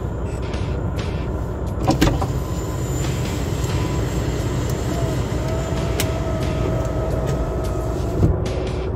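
Semi truck's diesel engine idling, a steady low rumble heard from inside the cab. A few sharp clicks and a faint whining tone for a few seconds in the middle sit over it.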